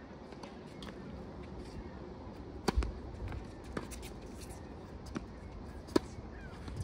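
Tennis ball impacts on a court: four sharp knocks spread a second or so apart, the one near the end the sharpest.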